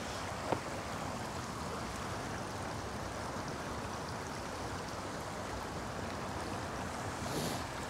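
Shallow brook water rushing steadily over rocks and a low spillway. A brief click sounds about half a second in.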